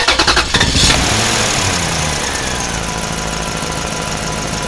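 Motor vehicle engine starting with a rapid clatter in the first second, then running steadily with a slowly falling whine.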